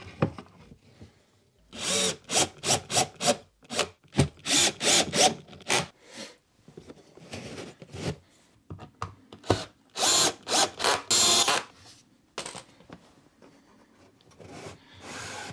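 Cordless drill-driver running in several short bursts, driving screws to fasten wooden fronts onto drawers, with a few wooden knocks between the bursts.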